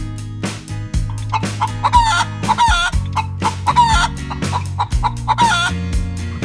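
Chicken clucking, a run of short wavering calls that starts about a second in and stops shortly before the end, over background music with a steady beat.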